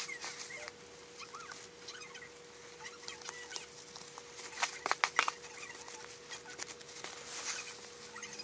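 Scissors snipping metallic crinkle-paper shred, with the paper and a plastic bag rustling: a string of irregular sharp snips and crinkles, the loudest cluster about halfway through.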